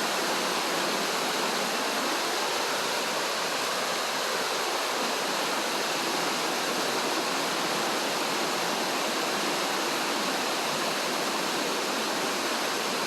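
Heavy downpour of rain, a steady even hiss of water falling without a break.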